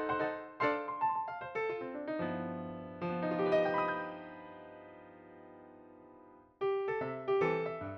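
Background music on an electric piano-style keyboard. A run of short, bouncy notes gives way a couple of seconds in to a held chord that fades away for about four seconds, and then the quick notes start again near the end.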